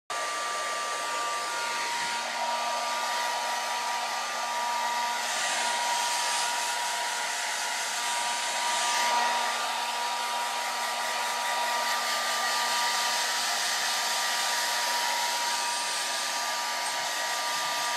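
Handheld hair dryer running steadily, its fan whine and rushing air changing in brightness a few times as it is moved about.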